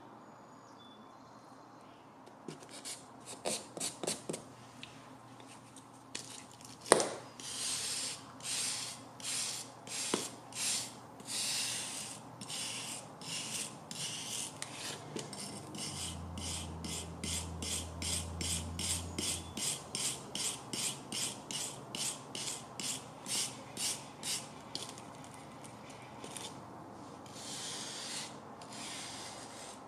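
A sanding stick rubbed back and forth along the edge of a metal instrument-stand base in short rasping strokes, about two a second, with one sharp knock about seven seconds in.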